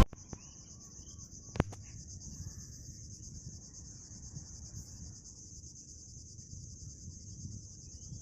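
Steady, high-pitched insect trill with a fast even pulse, over a low background rumble, with one sharp knock about a second and a half in.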